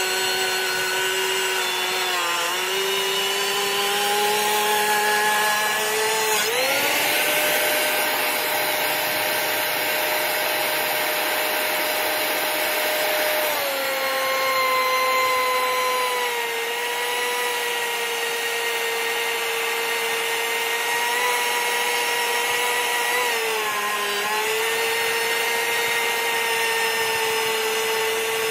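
Benchtop thickness planer running as a wooden post is fed through it, a steady motor whine with cutterhead noise. The pitch rises sharply about a quarter of the way in and drops again about halfway through, with short dips as the cut loads the motor.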